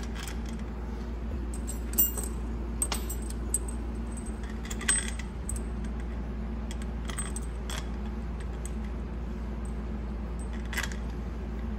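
Scattered light metallic clinks and ticks, about seven over the stretch, as steel bolts and parts of an automatic transmission pump are handled during assembly, over a steady low hum.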